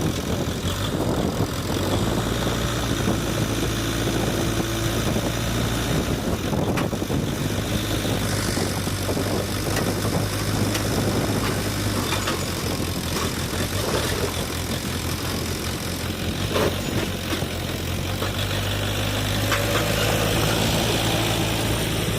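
A heavy diesel engine running steadily with a low hum, with a few short metallic knocks from the machinery.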